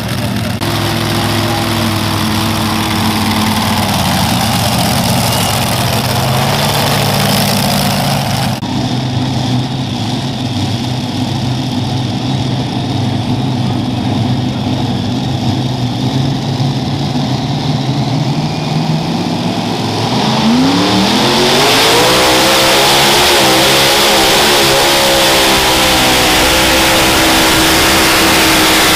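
Alcohol-burning, multi-engine super modified pulling tractors. One idles at the line, then after a cut another idles before its engines are throttled up about 20 seconds in, the pitch sweeping quickly upward and holding at a loud, high, steady note as the tractor launches into its pull.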